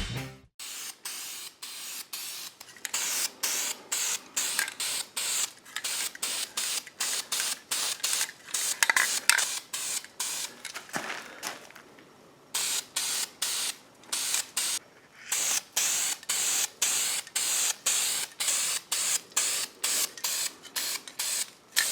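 Aerosol can of Cast Coat aluminum spray paint hissing in short repeated bursts, about two a second, as coats are sprayed onto an intake manifold, with a couple of brief pauses.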